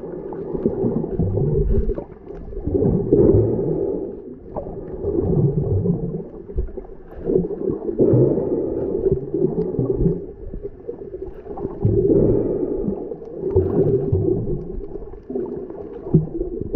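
Muffled underwater rumble of water moving around a submerged camera, swelling and fading every two seconds or so.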